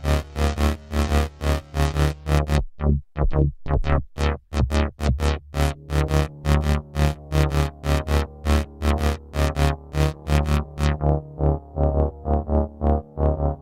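Novation Circuit Tracks groovebox playing a sequenced synth pattern: a run of short, evenly spaced notes over a steady bass line. The bass drops out for about two seconds near the start, then comes back in.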